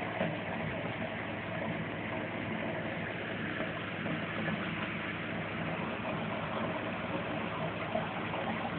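Aquarium filter running: a steady mechanical hum with an even hiss.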